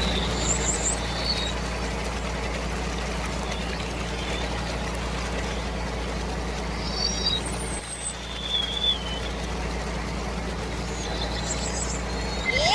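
Tractor engine running steadily, a low drone, with faint short high chirps above it. A cat meows right at the end.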